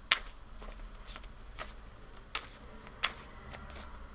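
A deck of oracle cards being shuffled by hand: a string of short card snaps and soft rustles about every half second, the sharpest right at the start.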